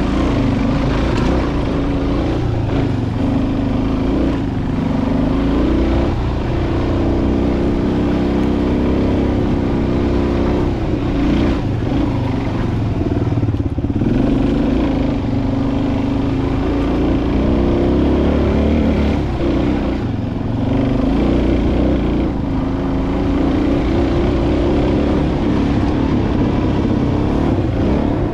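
Dual-sport motorcycle engine ridden off-road, the throttle opening and closing so its pitch keeps rising and falling, with brief dips as it is backed off.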